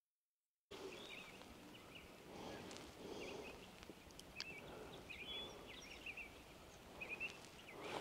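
Brief dead silence, then faint marsh ambience: distant small birds chirping now and then over a low, even background hiss.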